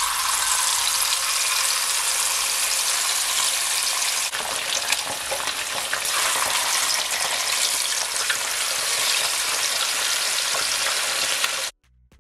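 Whole fish frying in hot vegetable oil: a loud, steady sizzle as two fish are lowered into the pot one after the other. It stops abruptly near the end.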